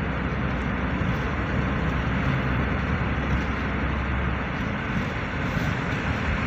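Steady road and engine noise of a moving car, heard from inside the cabin. The low rumble eases a little about four and a half seconds in.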